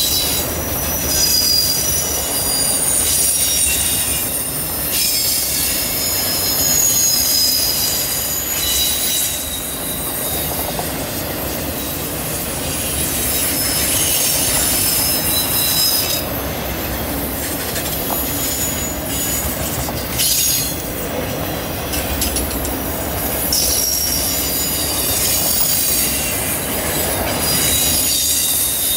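Freight train of autorack cars rolling past on a curve: the steel wheels squeal against the rail in high-pitched whines that come and go, over a continuous low rumble of the wheels on the track.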